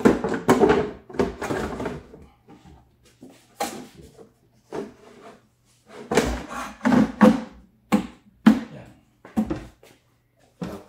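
Hard plastic housing of an SLE 6000 neonatal ventilator being handled and lowered shut onto its chassis: a string of irregular knocks, clunks and scrapes, loudest near the start and again about six to nine seconds in, over a steady low hum.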